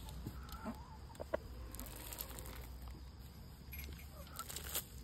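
Chickens clucking quietly with a few short calls, over scattered light clicks and a sharp click about a second in.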